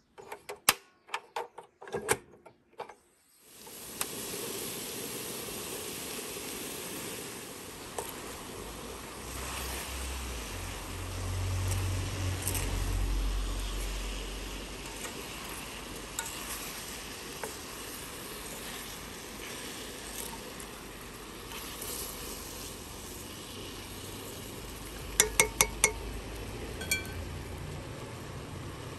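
A quick run of clicks and knocks, then a steady hiss of a gas burner heating a stainless pot of Korean cherries, with a low rumble in the middle and a few light metallic clinks near the end.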